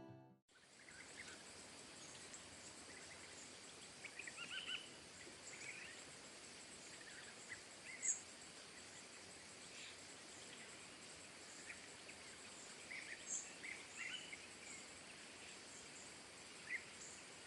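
Faint outdoor ambience: a steady hiss with scattered short chirps, a few sharper ones about eight and thirteen seconds in.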